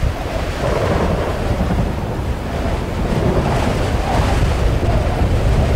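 Storm-at-sea sound effect: heavy surf and wind, a dense steady rush with a strong low rumble.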